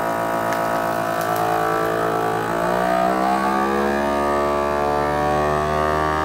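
FoodSaver vacuum sealer's pump motor running steadily, drawing the air out of a bag before the heat seal. It is a loud, pitched hum whose tone shifts about halfway through and then holds.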